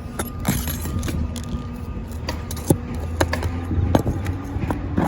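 Flat bar working loose asphalt roof shingles and nails: scattered light clicks, taps and scrapes of metal on shingle, over a steady low rumble.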